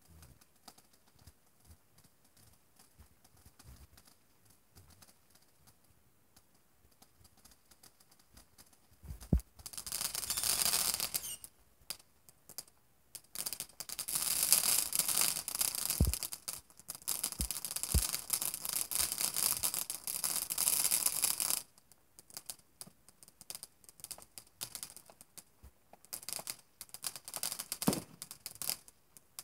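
Ground fountain fireworks spraying sparks, a dense hiss and crackle in two long spells with a few sharp pops. Scattered crackles follow near the end.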